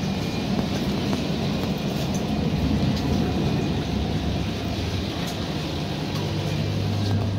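Cabin noise of an ADP-class diesel railcar under way: a steady rumble, with a low hum that grows stronger about five and a half seconds in.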